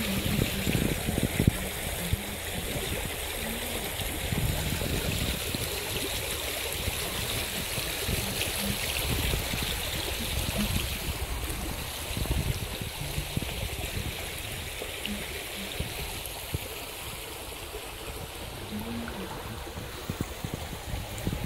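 Shallow stream running over a pebble bed: a steady rush of water that eases off about halfway through, with occasional low knocks from handling.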